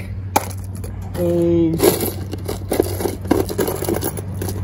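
A pile of loose metal car keys rattling and clinking as a hand rummages through a plastic tub, in quick irregular clicks from about two seconds in, over a steady low hum.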